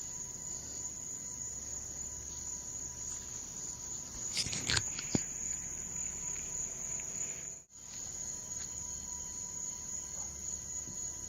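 Crickets or other night insects chirring in a steady high-pitched chorus. About four seconds in there is a brief cluster of knocks and rustling, and the sound cuts out for an instant near eight seconds.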